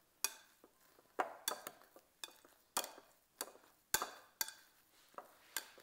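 A utensil mashing potatoes and cauliflower in a bowl, knocking and clinking against the bowl a dozen or so times at an uneven pace.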